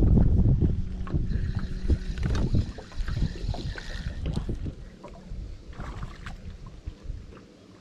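Wind buffeting the microphone and water slapping against the hull of a small fishing boat, loudest at the start and dying down toward the end. The clicks and rattles of a spinning rod and reel being handled run through it, with a steady low hum that fades out about two seconds in.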